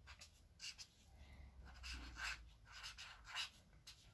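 Faint scratchy strokes of a felt-tip marker writing on paper, a few short strokes at a time.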